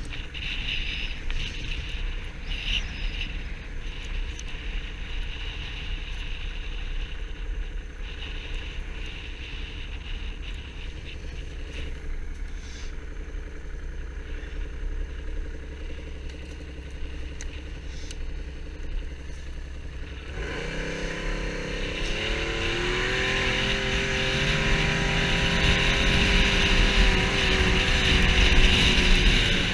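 Snowmobile engine running at a low, steady note, then about two-thirds of the way in getting louder and rising in pitch as it speeds up.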